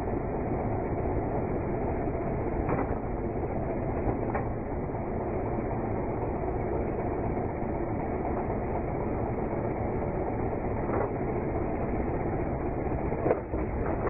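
Backhoe loader's diesel engine running steadily while the backhoe arm digs, with a few faint knocks.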